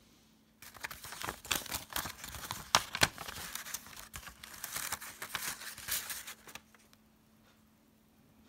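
Ernie Ball single-string paper packet crinkling and rustling with sharp crackles as it is opened by hand and the coiled guitar string is taken out. The rustling starts about half a second in and stops about two-thirds of the way through.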